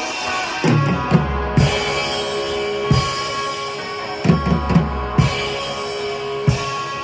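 Electric guitar playing a rock riff of held notes over a drum-kit beat, with kick-drum and snare hits coming in irregular clusters.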